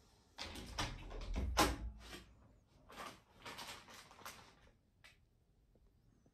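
Two spells of rustling and scraping with a dull low thud under the first, loudest about a second and a half in, then fading to quiet.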